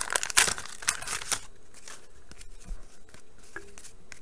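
Wax paper wrapper of a 1989 Bowman baseball card pack being torn open and crinkled, loudest in the first second and a half, then fading to quieter scattered rustles.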